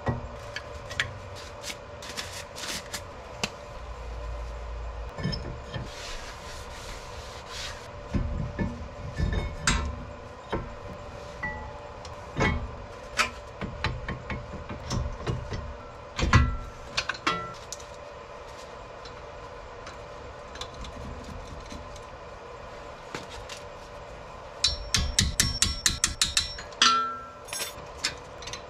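Metal clinks, taps and knocks of front disc brake parts being handled and fitted: brake pads set into the caliper bracket and the caliper worked onto a new rotor. Near the end comes a quick run of about eight sharp clicks.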